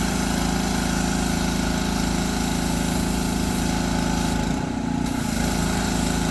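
Small petrol engine of a pressure washer running steadily, its note dipping and wavering briefly about four and a half seconds in before settling again.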